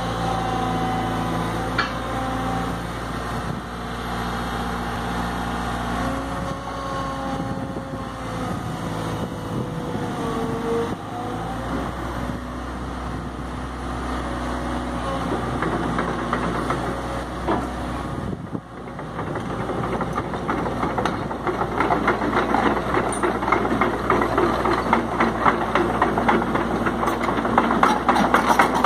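Case CX160 hydraulic excavator's diesel engine running steadily at idle. Near the end it grows louder and more clattery.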